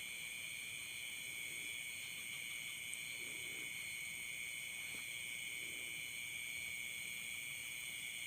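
A steady shrill insect chorus of crickets or cicadas, several pitches layered, with two faint low calls about three and a half and five and a half seconds in.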